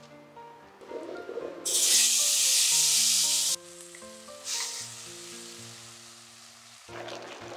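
Marinated beef bulgogi going into a hot frying pan: a loud sizzle about two seconds in that cuts off suddenly, then quieter sizzling as the meat is stirred with chopsticks.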